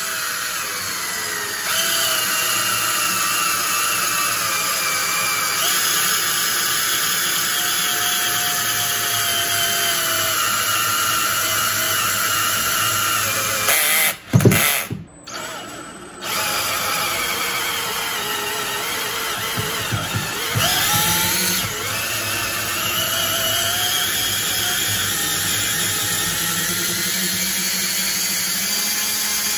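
Cordless drill turning a valve guide burnishing tool through a worn valve guide in a Buick 350 cylinder head, its motor lugging down under the load. It stops with a knock about halfway, then starts again and runs on, its clutch slipping at times.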